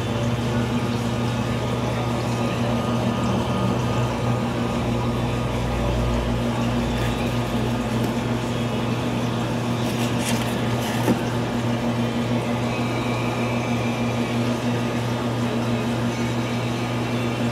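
Steady electrical hum of aquarium pumps, with a constant wash of circulating water.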